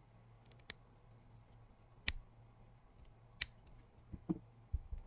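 Faint, light clicks and taps of a small screwdriver against the plastic and metal parts of a micro RC servo and car chassis as they are handled and fitted: about five or six scattered clicks, a few bunched together near the end.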